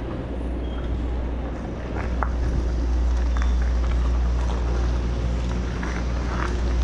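Wind buffeting the microphone during a bike ride, a steady low rumble, with the noise of tyres on a rough road and a few light ticks.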